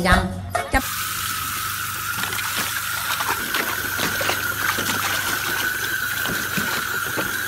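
Garden hose spraying a steady jet of water onto a dog standing in a plastic paddling pool, a continuous hiss, with a few faint splashes and clicks. Music cuts off just before it, about a second in.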